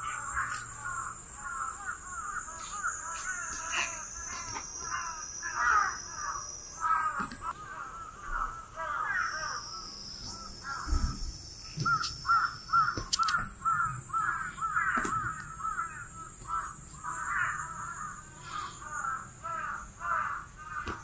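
Birds calling over and over in crow-like caws, along with a steady high-pitched drone that shifts in pitch a few times.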